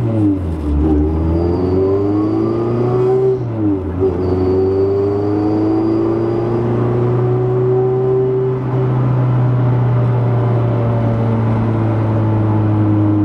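Honda CRX's high-compression B20 four-cylinder engine pulling under way, heard from inside the cabin: the revs climb for about three seconds, drop at a gear change, climb again more slowly, then settle to a steady cruise near the end, over a constant low drone.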